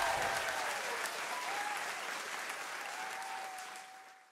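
Audience applauding, the clapping dying away steadily and fading out to silence near the end.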